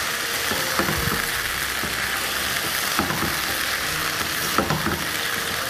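Meatballs frying in chili garlic sauce in a pan, sizzling steadily as the sauce cooks down to coat them, with a few scrapes of a spoon stirring.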